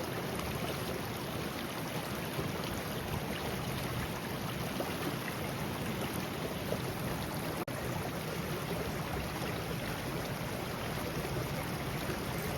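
Creek water running steadily as an even rushing noise.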